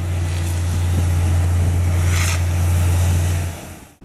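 Heavy demolition machinery running with a steady low engine drone, with a brief hiss about two seconds in. It fades out shortly before the end.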